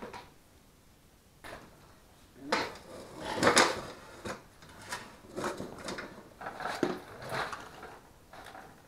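Hand tools and small metal engine parts clinking and clattering in irregular bursts as a small engine is taken apart, starting about a second and a half in and loudest about halfway through.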